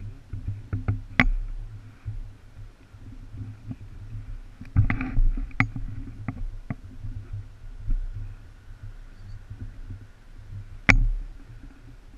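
Low rumble with irregular knocks and clicks from a head-mounted camera being moved about, the loudest a sharp click near the end.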